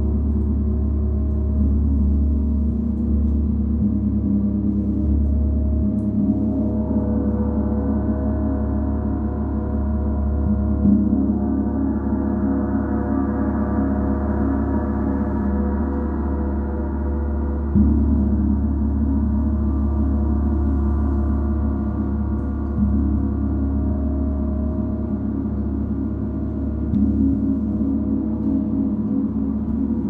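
32-inch Paiste Symphonic gong ringing continuously: a deep sustained hum under many overlapping ringing tones. Light strokes now and then renew the wash, about a second in and again several times later, and the higher overtones swell in the middle.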